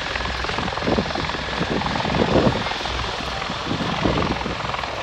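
Bell V-280 Valor tiltrotor's rotors and turboshaft engines running, a loud steady drone with a low pulsing beat.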